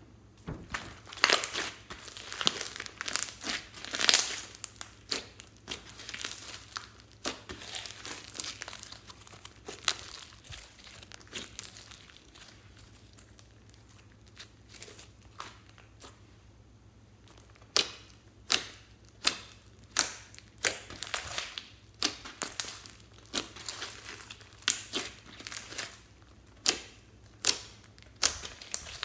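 Pink glossy slime mixed with floam beads being stretched, folded and pressed by hand, giving sticky crackling and sharp pops. The cracks crowd together in the first few seconds, thin out through the middle, and become a string of separate pops about twice a second in the second half.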